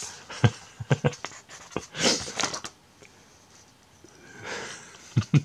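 Paper desk calendar being handled and a page turned: a few light clicks and taps, then a short rustle about two seconds in. A soft breath or sniff follows near the end.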